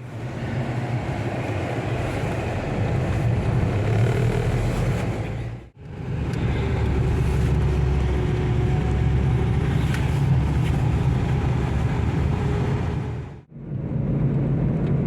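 Car running on the road, heard from inside the cabin: a steady low engine and road rumble with tyre noise, broken by two brief drop-outs.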